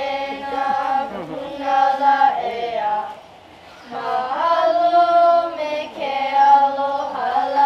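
A group of voices, mostly children's, singing together in long held notes, phrase by phrase, with a short pause for breath about three seconds in.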